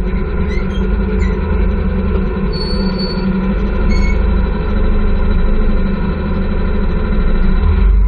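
Motorcycle engine of a tricycle (motorcycle with sidecar) running steadily, heard from on board.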